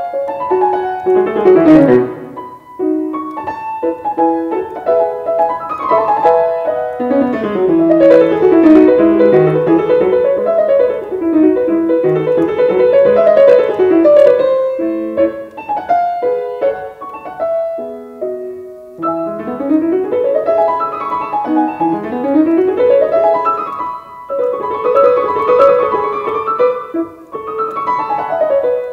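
Grand piano played solo in a classical piece, with fast scale runs sweeping up and down the keyboard several times between more chordal passages.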